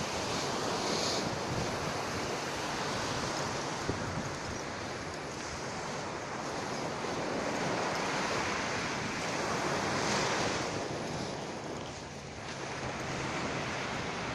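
Sea surf washing onto a sandy beach: an even rush of noise that swells about eight to ten seconds in and eases around twelve seconds, with wind buffeting the microphone.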